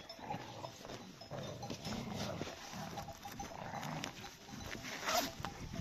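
Faint, scattered sounds of livestock-guarding dogs and their flock moving about, with no distinct bark or bleat standing out.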